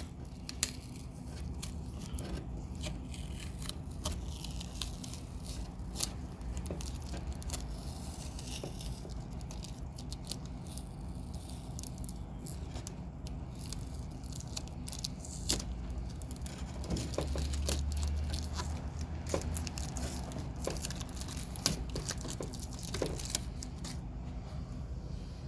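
Plastic backing film being peeled and crinkled off a cured fibreglass patch, with scattered light clicks and crackles of handling over a steady low hum.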